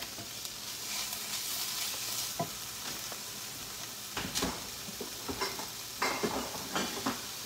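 Ground beef sizzling as it fries in a skillet, stirred with a wooden spatula at the start. A few light knocks come in the second half.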